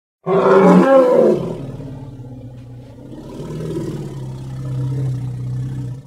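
Elephant roar sound effect: a loud pitched bellow starts suddenly, then settles into a long, lower rumbling growl that swells again toward the end before cutting off.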